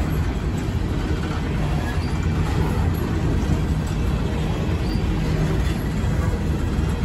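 Empty coal hopper cars of a freight train rolling past, a steady rumble of wheels on the rails.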